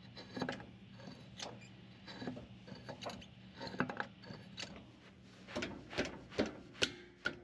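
Irregular metal clicks and clunks as the driveshaft universal joint of a 2006 Kia Sorento is twisted back and forth by hand, the joint being replaced. Several sharper clicks come near the end.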